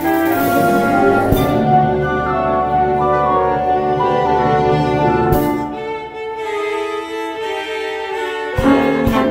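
Youth orchestra playing a slow arrangement, violins carrying held melody notes over woodwinds and lower strings. The low parts drop away about six seconds in, leaving a thinner, higher texture, and a few brief knocks sound along the way.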